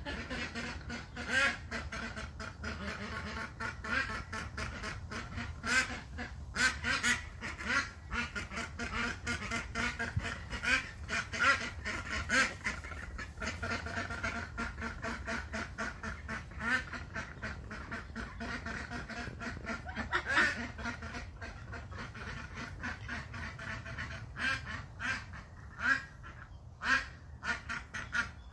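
Domestic ducks quacking repeatedly, in a quick run of short calls, often several a second.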